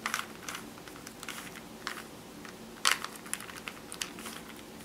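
Rubik's Cube being turned by hand: an irregular run of light plastic clicks and clacks as the layers rotate, the loudest about three seconds in.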